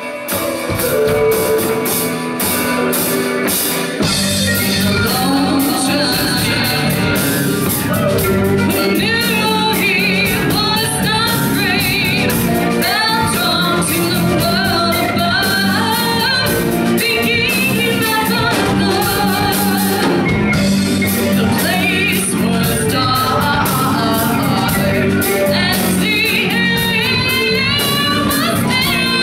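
Live rock band playing amplified electric guitars, bass, keyboard and drum kit, with a singer's voice over it. The full band comes in about four seconds in, and the vocals, with a wavering vibrato, start about eight seconds in.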